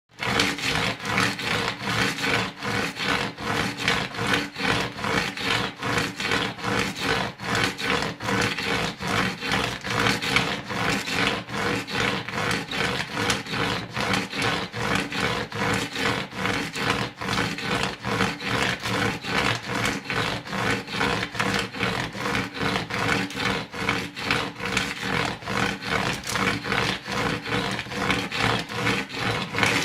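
Something being rubbed back and forth in quick, even strokes, about two to three a second, with a rough, scraping texture that keeps up steadily throughout.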